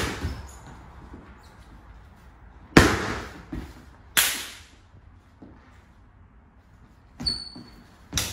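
Sharp slaps and stamps from a kung fu form being performed: hand strikes and feet stamping on a hardwood floor. There are about five separate hits, the loudest about three seconds in. A couple of them carry a brief high squeak of sneakers on the wood, the clearest near the end.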